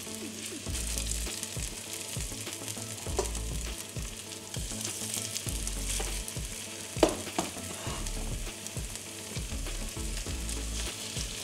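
Zucchini-cheese fritter batter sizzling in hot rapeseed oil in a frying pan, a steady hiss with a few light clicks and knocks, the loudest about seven seconds in.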